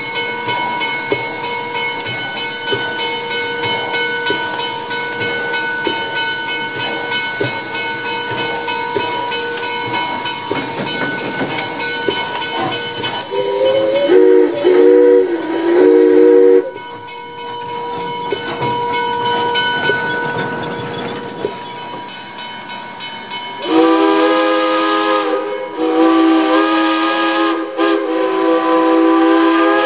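Steady steam hiss in the cab of a 1901 Pennsylvania Railroad 0-6-0 switch engine. About half way in, its steam whistle sounds three short blasts. Near the end it gives two long blasts.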